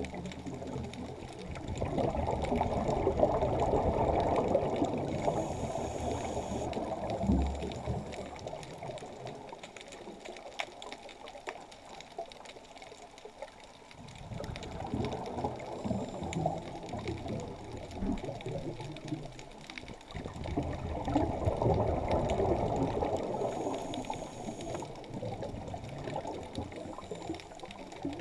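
Underwater, a scuba diver's breathing: exhaled bubbles rumbling in long swells that come and go every several seconds, with a short higher hiss twice.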